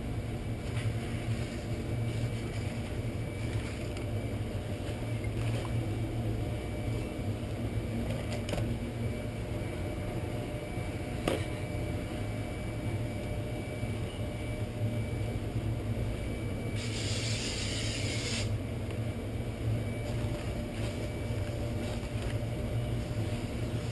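A steady low hum throughout, and about seventeen seconds in a hiss lasting about a second and a half: an aerosol cleaner sprayed onto a new brake rotor to clean off its coating.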